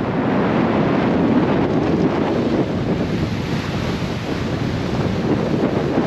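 Wind buffeting the microphone over the steady rush of sea water past the hull of a sailboat moving fast under sail in open ocean.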